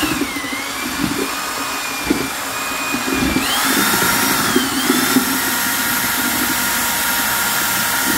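Corded electric drill with a paddle mixer stirring thinset tile mortar in a plastic bucket: a steady motor whine whose pitch rises about three and a half seconds in and settles back down a second and a half later.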